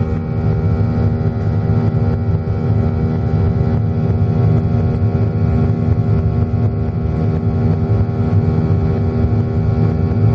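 Cabin noise of a Boeing 737-800 climbing after takeoff, with its CFM56-7B jet engines at climb power. It is a loud, steady rumble with a cluster of steady engine tones above it.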